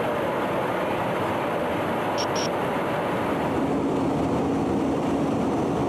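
Steady noise of engines and airflow inside a KC-135 tanker aircraft in flight, with two short high beeps a little over two seconds in. A steady low hum joins past the halfway point.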